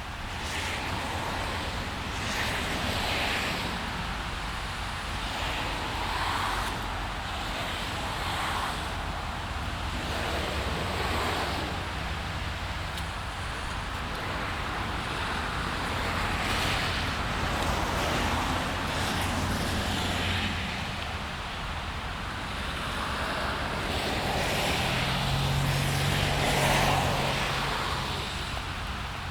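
Steady rain with cars passing on a wet road, their tyres hissing as they swell and fade. An engine's low hum builds to the loudest point near the end.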